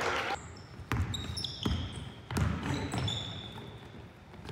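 Basketball being dribbled on a hardwood gym floor, several bounces about 0.7 s apart, with short high-pitched sneaker squeaks on the floor between them.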